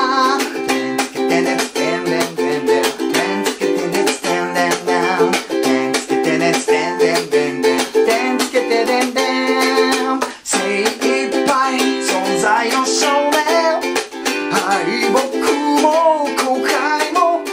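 Soprano ukulele strummed hard in a driving eight-beat rock rhythm with muted cutting strokes, playing a C–F–G7–F instrumental break. It breaks off briefly about ten seconds in, then picks up again, and a man's singing voice comes back in near the end.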